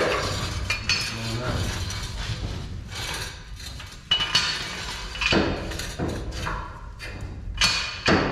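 Steel jack stands being set in place, clanking and clinking metal on metal in a handful of sharp knocks a second or more apart.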